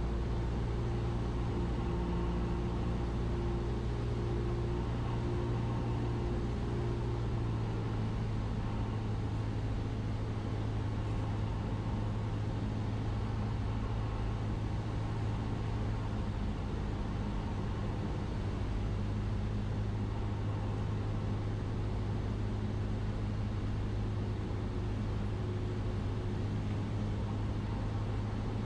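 Cessna 172's single piston engine and propeller droning steadily in flight, heard inside the cabin. The tone shifts slightly about eight seconds in.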